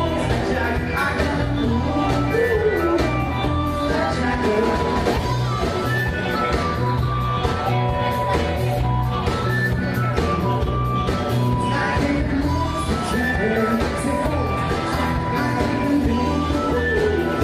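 A live band playing an amplified pop-rock song: drum kit, electric guitar and keyboards, with singing over a steady beat.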